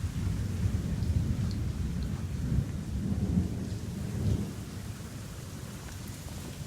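Thunder rumbling low during a heavy rainstorm, swelling and then dying away over the last couple of seconds, with rain hissing faintly underneath.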